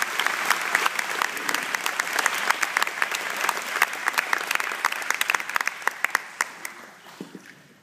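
Church congregation applauding, with sharp, close claps standing out over the general clapping; the applause fades away over the last couple of seconds.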